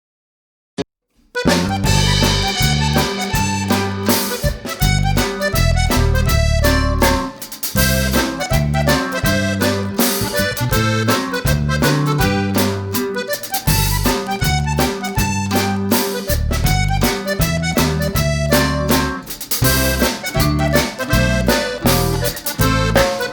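Background music with a heavy bass line and a steady drum beat, starting suddenly about a second in after a single short click.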